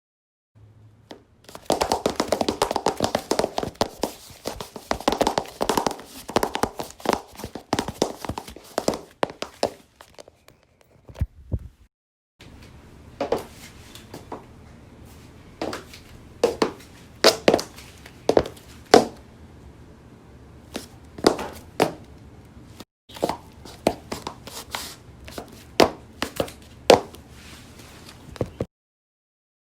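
Sharp knocks and thumps. The first stretch is a dense, rapid run lasting about eight seconds. After a short silence come single knocks about once a second over a faint low hum.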